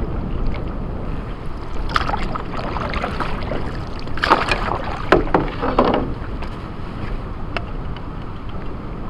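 Canoe out on a windy lake: a steady rumble of wind on the microphone, with water splashing about two seconds in and again several times between four and six seconds in.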